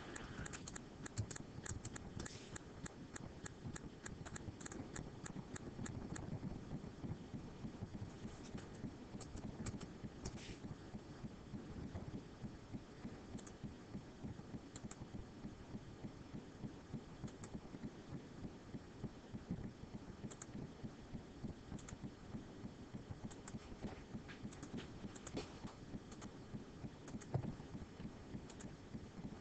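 Faint computer mouse clicks: a quick run of clicks near the start, then single clicks every second or two, over a low steady hum.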